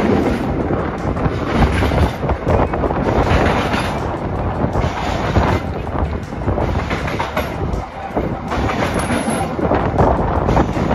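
Vintage streetcar rolling along its track, heard from inside the car: a steady rumble of steel wheels on rail with irregular clattering knocks.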